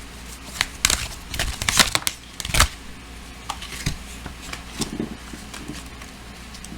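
Tarot cards being handled and shuffled: a run of quick clicks and papery rustles, busiest in the first three seconds, then a few softer ones.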